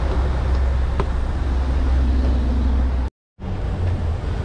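Steady low rumbling background noise, with a brief cut to silence about three seconds in.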